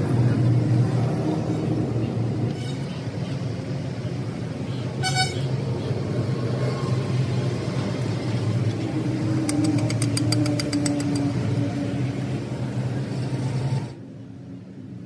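A motor vehicle engine drones steadily, with a short horn toot about five seconds in and a quick run of sharp clicks near ten seconds. The sound drops away abruptly near the end.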